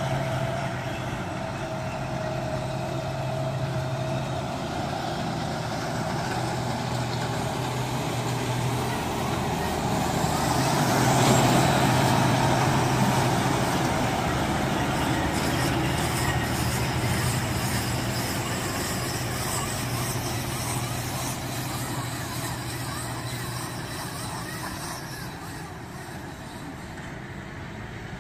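Big farm tractor's diesel engine running steadily as it pulls a working round baler through rice straw, swelling as it passes close about ten to thirteen seconds in, then fading as it drives off.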